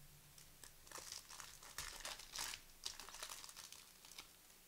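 Trading card pack wrapper being torn open and crinkled by hand, a run of short crackly rustles that starts about a second in and stops shortly before the end.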